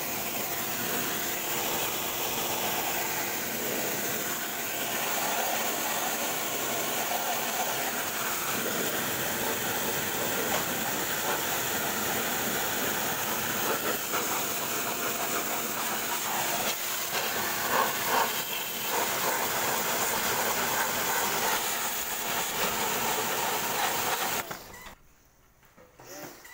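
Pressure washer running, its jet hissing steadily as it sprays water onto a car's AC condenser to clean it. The spray cuts off near the end.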